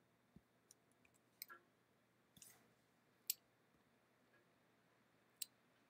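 Near silence broken by about half a dozen faint, scattered clicks from a computer mouse, the sharpest a little over three seconds in and near the end.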